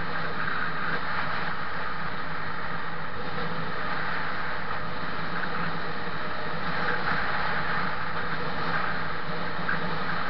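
Steady wind and road noise on a camera riding along on a moving vehicle, with a low steady hum underneath.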